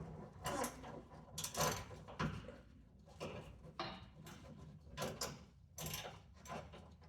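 Ratchet driving a 13 mm socket on a long extension, working a bump stop bolt loose: irregular metallic clicking and clinking in short strokes, about eight of them.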